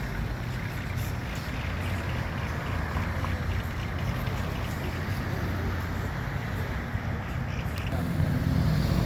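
Car engine running with a steady low rumble, growing louder near the end.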